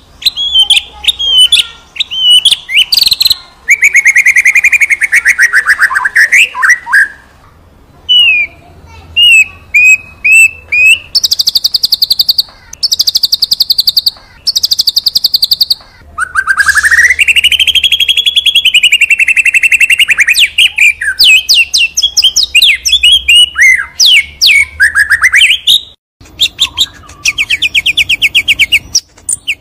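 White-rumped shama (murai batu, Borneo type) singing vigorously: a varied run of clear whistles sliding up and down, a long slurred whistle, and bursts of fast rattling trills, with a brief break in the song past the middle.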